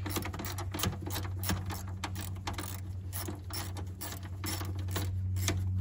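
Ratchet clicking rapidly and unevenly as it backs off a 10 mm nut on an engine-bay bracket, over a steady low hum.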